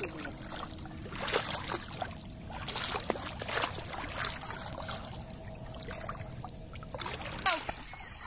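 Water trickling and dripping from a gill net heavy with small puti fish as it is held up out of shallow water, with scattered small splashes and a louder splash near the end.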